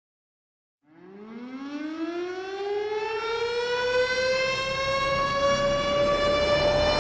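A siren winding up. It starts from silence about a second in as one tone with many overtones, rises slowly in pitch, and levels off high near the end.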